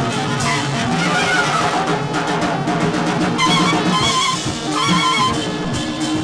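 Free-improvised experimental jazz: a dense ensemble of horns and drums, with a wavering, high-pitched brass line that comes in about three and a half seconds in.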